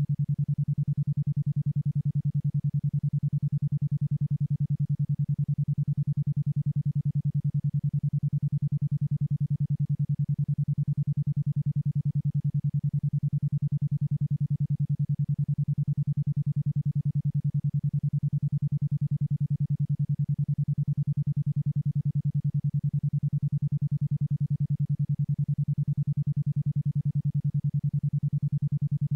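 A 10.2 Hz isochronic tone: a low, steady electronic tone switched on and off about ten times a second, an alpha-range rhythm meant for brainwave entrainment.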